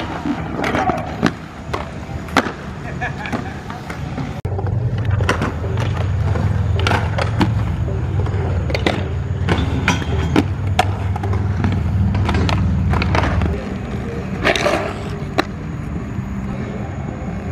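Inline skate wheels rolling on a concrete skatepark surface, a steady low rumble that is loudest through the middle, with many sharp clacks and knocks scattered through it.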